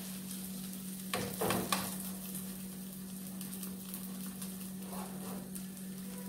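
Oat pancake sizzling and crackling as it fries in butter in a nonstick frying pan, with a metal spoon scraping and pressing against the pan for a moment about a second in. A steady low hum runs underneath.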